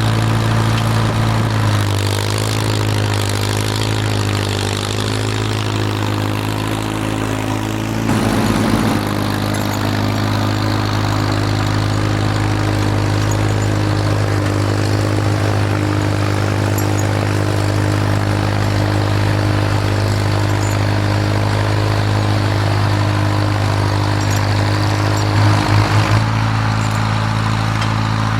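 Farmall M tractor's four-cylinder engine running steadily under load while pushing snow. Its pitch wavers slightly in the first few seconds, with brief surges about eight seconds in and again near the end.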